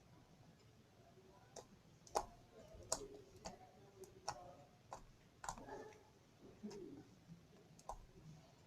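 Homemade glue slime being squeezed and worked by hand, giving off faint, irregular clicks and small squelching pops.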